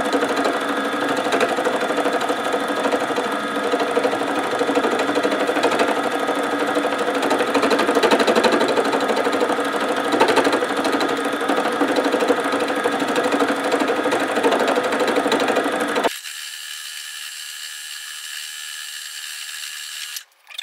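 Simplicity 12-needle felting machine running, its needles punching rapidly as wool roving is fed under them to felt it into the backing. About sixteen seconds in the sound cuts off abruptly, leaving a fainter, thinner hum.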